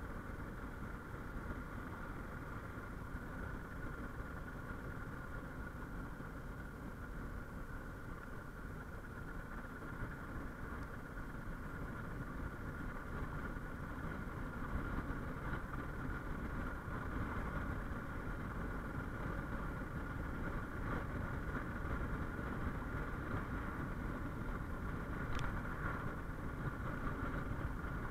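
Suzuki XF650 Freewind's single-cylinder four-stroke engine running steadily under way at about 40 to 50 km/h, with road and wind rumble, picked up by a chest-mounted action camera's built-in microphone. The sound grows slightly louder as the bike gathers speed.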